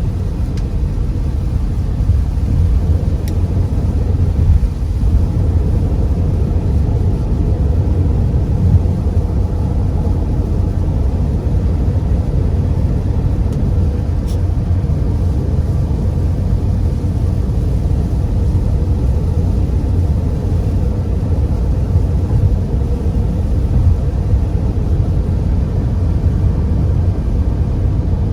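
Steady low rumble of a car's cabin while driving through heavy rain: tyres on a wet road and engine running evenly, with a light hiss above the rumble.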